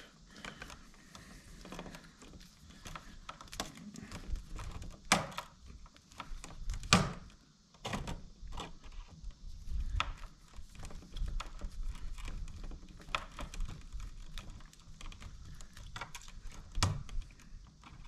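Pliers twisting bare copper ground wires together: scattered small clicks, ticks and scrapes of metal jaws and wire, with a couple of louder knocks about five and seven seconds in.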